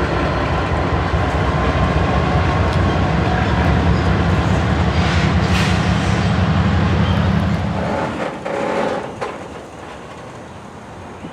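Freight train diesel locomotives running with a heavy low engine rumble that falls away about eight seconds in, leaving rail cars rolling with a few sharp clacks of wheels over rail joints.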